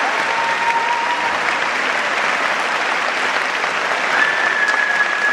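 Audience applauding steadily, many hands clapping at once. A faint thin steady tone sounds over the clapping near the start and again from about four seconds in.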